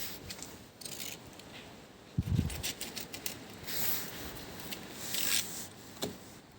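Work noise of materials being handled: scraping and rustling with a few light clicks, and a dull thump a little over two seconds in.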